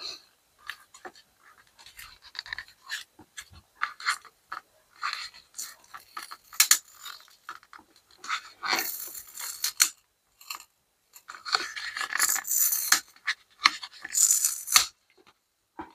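Handling noise from a power bank's battery pack: irregular light clicks of the plastic cell holder and scratchy rustling as the green insulating paper over the cells is peeled back, with longer scraping passages about nine, twelve and fourteen seconds in.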